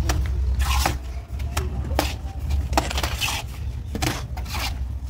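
Steel trowels clinking and scraping against metal mortar pans as mortar is scooped up and pressed onto a brick wall: a string of sharp clicks and short scrapes, over a steady low rumble.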